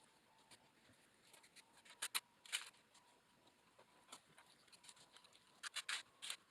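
Faint handling sounds of setting thin brick tiles with mortar: a pair of sharp clicks about two seconds in, a short scrape just after, and a quick cluster of scrapes and clicks near the end.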